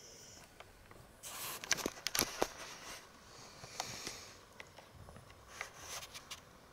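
Dalmatian's noisy breathing and sniffing while it sleeps: a snore trails off at the start, then three spells of snuffling breaths with small clicks.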